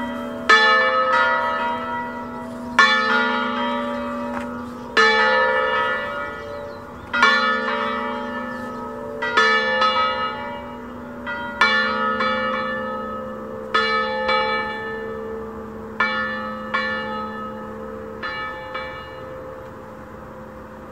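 Peal of three church bells in A, cast by Carlo and Giuseppe Bonavilla in 1798, swung full circle. Strong strokes come about every two seconds, with lighter ones between, each leaving a long ringing hum. The strokes grow steadily weaker and stop a little before the end, as the peal dies down and the hum fades.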